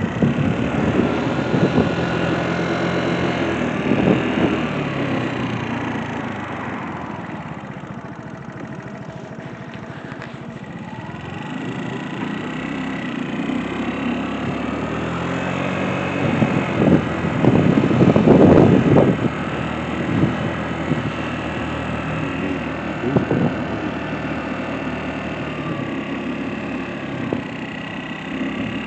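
A vehicle's engine running, its pitch shifting as it goes; it drops in loudness for a few seconds and then picks up again.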